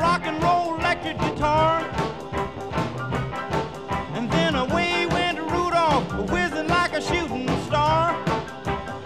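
Upbeat background music with a quick, steady beat.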